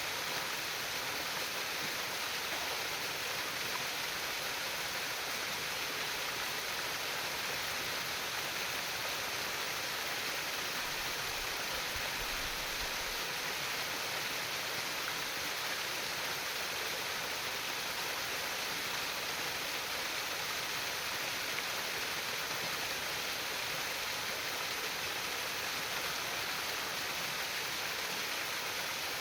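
Shallow stream water trickling and babbling in a steady, unbroken rush.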